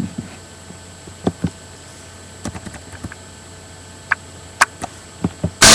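Scattered clicks and taps of a computer mouse and keyboard while a song is being picked, a dozen or so irregular clicks. Just before the end, music starts suddenly and loudly.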